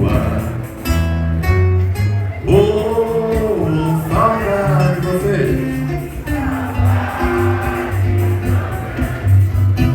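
Music: a voice singing with vibrato over guitar and a steady bass line.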